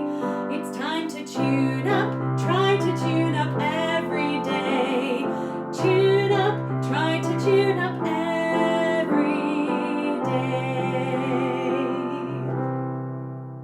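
Music: a wavering vibrato melody, likely sung, over piano and held bass notes, fading out near the end.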